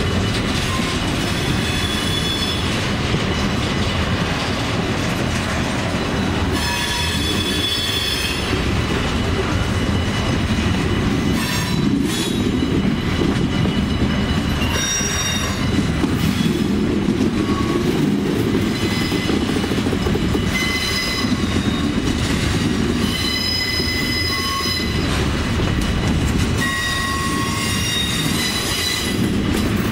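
Loaded freight cars rolling past at close range: a steady rumble and clatter of steel wheels on rail, with high-pitched wheel squeals that come and go.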